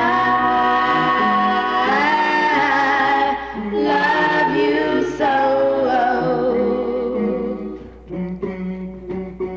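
A song with singing: long held vocal notes over the music.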